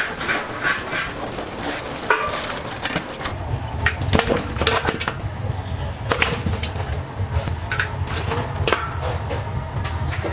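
Irregular knocks and clatter of kitchen utensils against wood and metal, over a low steady hum that starts about three seconds in.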